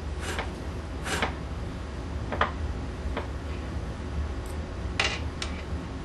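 Two short puffs of breath blowing out candles, then the small clicks and clacks of alligator clips and wire leads being handled, over a steady low hum.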